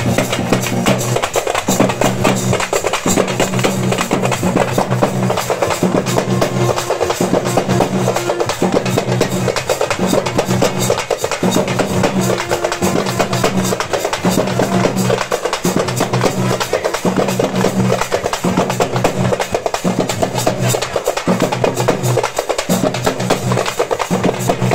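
A group of parai (thappu) frame drums beaten with sticks in a loud, fast, unbroken rhythm. A low droning tone sits beneath the drumming and drops out every second or so.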